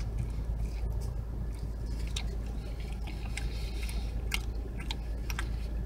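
Close-up chewing of a soft, cheesy quesadilla: wet mouth sounds with scattered small clicks, over a steady low hum.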